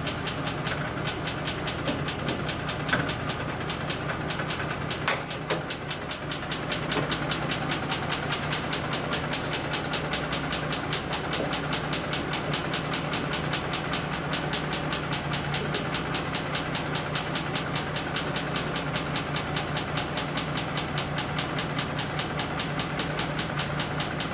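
Mercedes G-Class M104 3.2-litre inline-six running with a rapid, even knock, several a second, which grows more distinct about six or seven seconds in. The engine has a burnt piston in cylinder one with no compression there, and the cause of the knock is not yet known.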